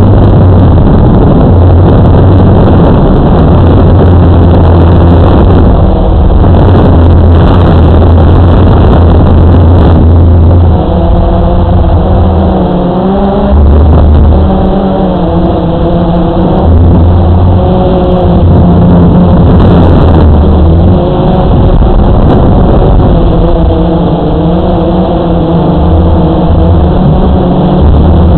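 Electric motors and propellers of a camera drone, heard loud through its onboard microphone along with rushing air. About eleven seconds in, whining tones begin to rise and fall with the throttle.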